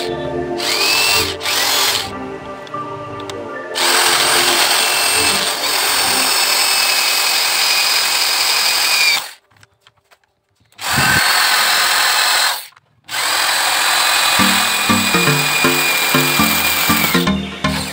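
Handheld power tool working metal, a loud rasping whine in long stretches that cut off abruptly twice, over background music.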